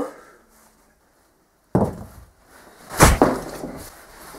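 Thuds and knocks of two people fighting: a sudden heavy impact a little under two seconds in, then a louder pair of blows about a second later.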